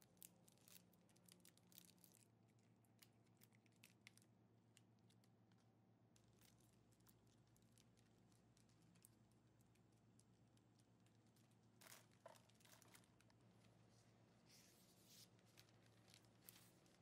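Faint crinkling and clicking of clear cellophane cookie bags being handled, over a low steady hum. Near the end, a sheet of wrapping paper rustles as it is cut with scissors.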